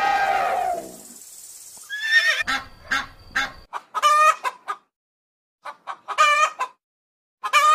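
Rooster crowing repeatedly in short calls about every two seconds, starting about two seconds in, with hen clucks between. The tail of a long pitched animal call fades out in the first second.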